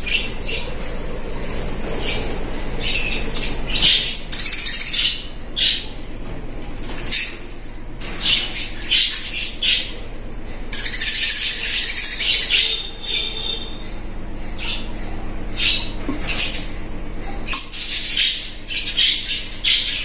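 Budgerigars chattering, with many short high chirps and squawks coming one after another throughout.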